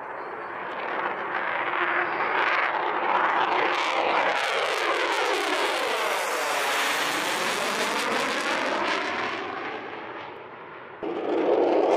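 Jet engine roar of an F-22 Raptor's two Pratt & Whitney F119 turbofans climbing out after takeoff. The roar swells over the first couple of seconds, and its tone sweeps down and back up as the jet passes overhead. It then fades as the jet climbs away, and a louder rushing noise cuts in abruptly near the end.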